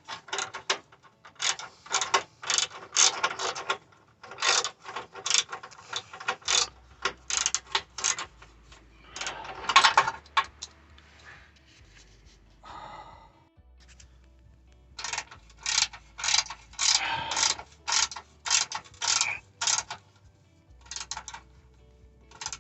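Hand ratchet wrench clicking in runs of quick strokes with short pauses between them, as a bolt is run in by hand.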